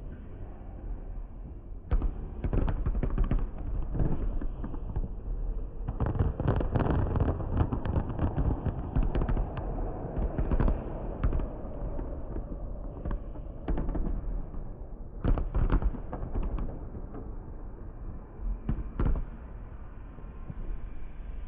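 Fireworks display bursting in rapid volleys of bangs over a continuous low rumble, densest about six to eleven seconds in and again around fifteen seconds in.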